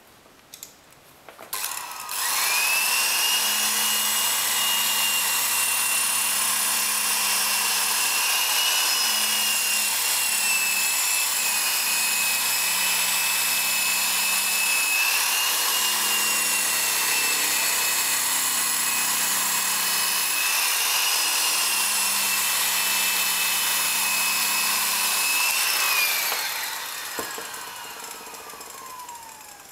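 Handheld rotary polisher with a buffing pad running at a steady speed, buffing compound on a wood trim panel to a gloss. It starts after a few clicks about two seconds in, holds a steady whine that wavers slightly, then falls in pitch as it spins down near the end.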